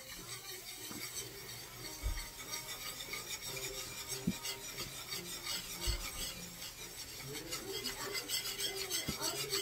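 A wire whisk scraping rapidly and steadily round a frying pan, stirring flour into hot bacon grease to make a roux. A couple of low bumps sound about two and six seconds in.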